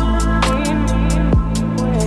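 Background music: an electronic beat with steady hi-hat ticks about four times a second over a held deep bass, with a falling bass slide about halfway through.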